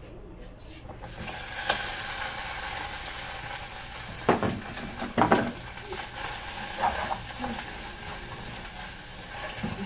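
Tomato-and-onion sauce base frying in oil in a frying pan: a sizzle starts about a second in as the food goes into the hot pan, then keeps on steadily. A spoon stirring the pan clinks sharply against it several times.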